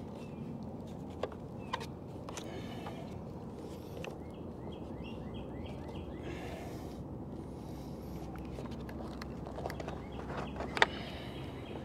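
Quiet outdoor background with a few sharp plastic clicks and knocks as the satellite antenna mount is handled and rotated on its tripod, the loudest click near the end. Midway a bird chirps a quick run of about eight short notes.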